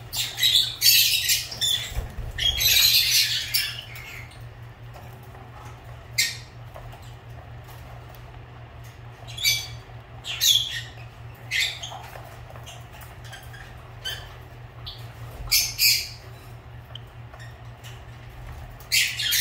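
Lovebirds (Agapornis) calling with sharp, high-pitched chirps. A dense run of calls fills the first four seconds, then single calls or pairs come every few seconds. A steady low hum runs underneath.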